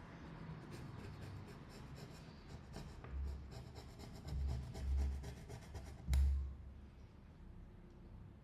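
A small knife blade scraping old screen adhesive off a phone's frame in short, quick strokes. A few dull knocks come in among them, the loudest about six seconds in.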